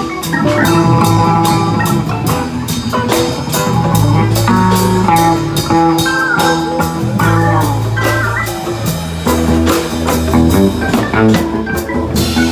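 Live band jamming instrumentally: electric bass, guitars and keys over a steady drum-kit beat with hand percussion.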